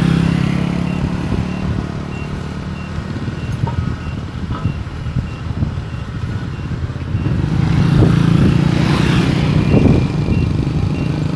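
Rice combine harvester's engine running hard as the machine climbs onto a truck, swelling in level at the start and again about eight seconds in, with a high warning alarm beeping steadily about twice a second.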